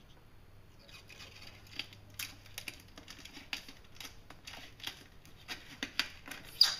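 Protective plastic film being peeled back from the bottom edge of a clear plastic windshield: irregular crackling and crinkling starting about a second in, with a sharper crackle near the end.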